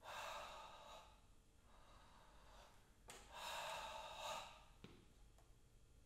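Two long audible breaths, one at the start and one about three seconds later, each lasting about a second, performed as part of a written breathing score.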